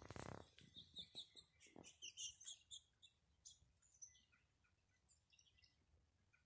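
Faint chirping of small birds: many short, high notes in quick runs, thinning out after the first few seconds, with a brief rustling crackle at the very start.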